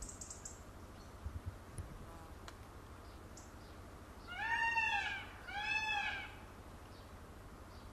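Indian peafowl (peacock) calling twice, two loud cat-like wailing calls a little over half a second each, rising then falling in pitch, about a second apart.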